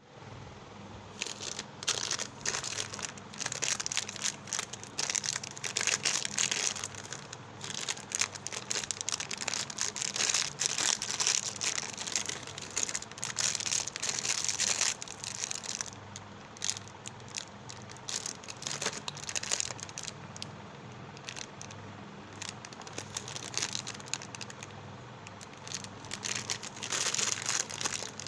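Plastic lollipop wrappers crinkling as fingers handle and press them, in irregular crackly bursts that are busiest through the first half and again near the end, over a faint steady low hum.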